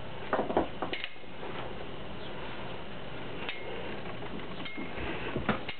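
Two Beyblade spinning tops whirring steadily on a plastic stadium floor as they slow down near the end of a battle. A few light clicks and knocks come in the first second and again near the end, where the tops touch.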